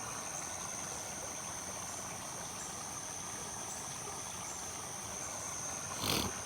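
Small waterfall on a stream: water splashing and rushing steadily, with a steady high-pitched whine above it and a brief louder burst of noise near the end.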